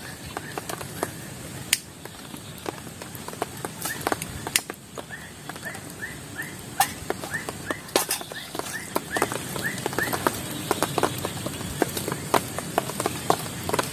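A bird calling in a quick run of short, evenly repeated notes from about four seconds in until about ten seconds in, over scattered clicks and snaps of dry twigs and palm fronds being handled as a small cooking fire is lit.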